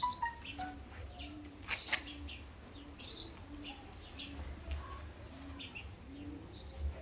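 Birds chirping in short, scattered high calls, with a low short note repeating about twice a second beneath them.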